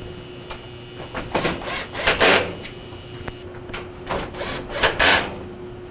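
A power screwdriver driving in the dryer console cover's screws, heard as several short whirring bursts over a steady hum.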